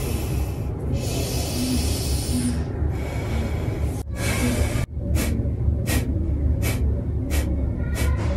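Forceful breathing through the nose during a pranayama breathing exercise. Long hissing breaths come first, then a fast run of sharp nasal exhales, about three a second.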